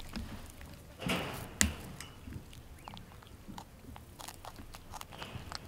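Vervet monkey chewing grass stems close to the microphone: faint scattered crunching clicks, with a brief rustle about a second in.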